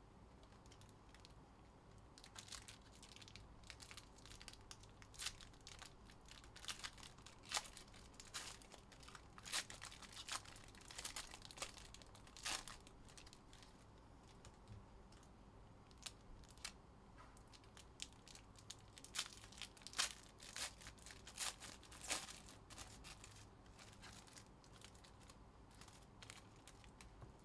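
Hands handling trading cards and foil card packs: irregular clicks and snaps of cards being flicked and stacked, mixed with crinkling of foil wrappers. The sounds come in two busy stretches and thin out near the end.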